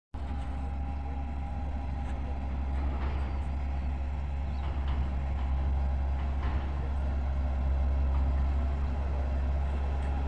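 Single-drum road roller's diesel engine running steadily as the machine rolls over loose soil, a deep, even drone with a faint steady whine above it.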